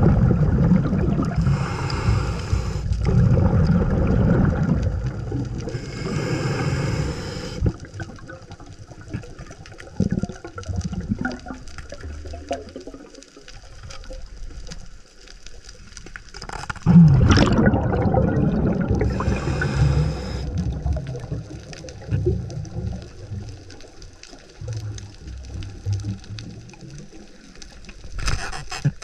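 Underwater sound of a scuba diver breathing through a regulator: long bubbling exhalations, two near the start and another about two-thirds through, over a low watery rumble. A quick run of clicks comes near the end.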